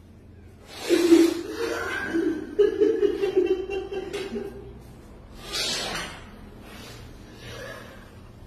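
A person's voice, wordless and breathy, for about three and a half seconds starting about a second in, then a short breathy rush around the middle.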